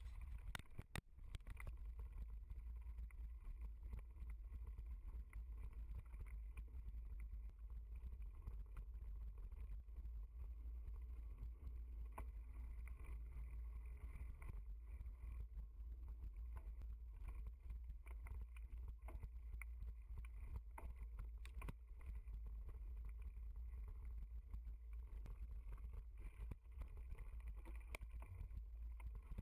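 Mountain bike riding over a dirt trail, heard through a bike-mounted camera: a steady low rumble of wind and tyre noise on the microphone, with scattered clicks and rattles as the bike jolts over the ground.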